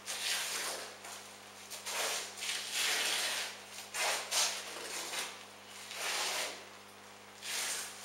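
Irregular scuffing and rustling noises of a person moving about on foot, about seven short bursts, each under a second long.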